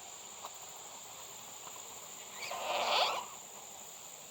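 A brief scraping rustle with squeaky streaks, about a second long and a little past the middle, as the opened hive is handled, over a steady high insect-like whine.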